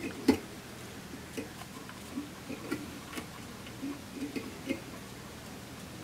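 Light, irregular clicks and taps from fly-tying tools and materials being handled at a fly-tying vise, with the sharpest click about a third of a second in.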